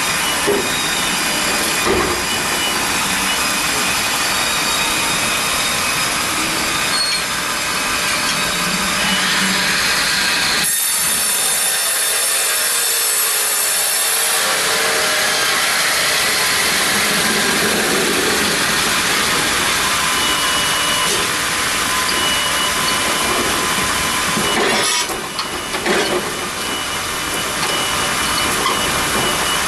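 Serra XT 135 mobile bandsaw sawmill running and sawing through a large log, a loud, steady mechanical sawing noise. The low rumble drops away for a few seconds about eleven seconds in.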